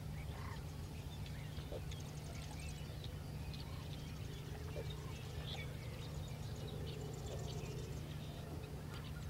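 Marsh ambience: scattered faint bird calls, with a quick high trill about two seconds in and another near the end, over a steady low hum.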